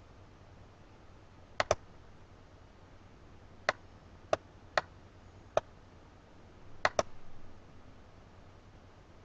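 Seven sharp clicks: a quick double click about one and a half seconds in, four single clicks spaced about half a second to a second apart, then another quick double click about seven seconds in.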